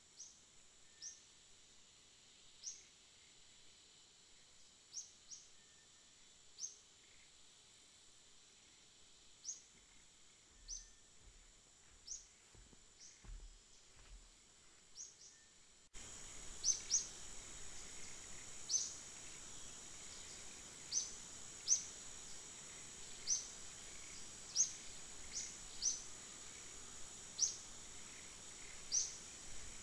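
Outdoor ambience of a steady high insect drone, with a bird's short, high, falling chirps repeated every second or two. About halfway through, the whole background suddenly gets louder.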